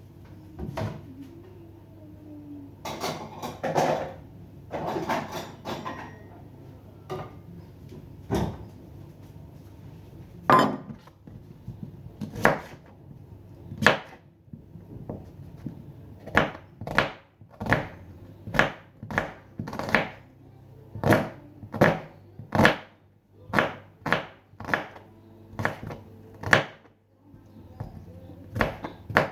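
Knife chopping on a cutting board: a few separate strikes and some handling first, then a steady run of chops, about two a second, through the second half.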